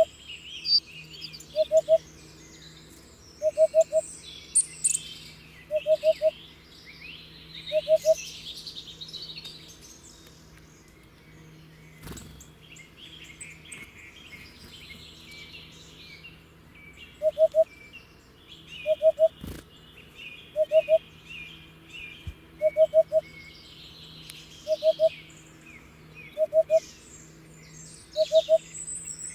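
Hoopoe singing short groups of two or three low 'oop' notes, repeated about every two seconds, with a pause of several seconds midway. Smaller birds chirp at a higher pitch behind it.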